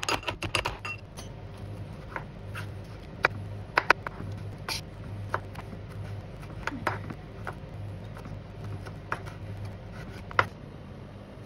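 A kitchen knife slicing and chopping tomatoes on a wooden cutting board, each cut ending in a sharp tap of the blade on the board, about one a second. In the first second there is a quick run of knocks from a steel pestle pounding garlic in a metal mortar.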